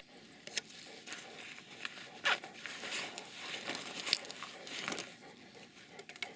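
Rustling and crackling of dry forest undergrowth, with scattered twig snaps, as someone moves through it.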